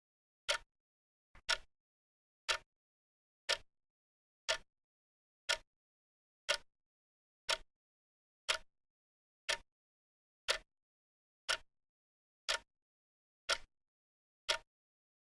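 Clock ticking: one short, sharp tick each second, steady and even, with no sound between ticks.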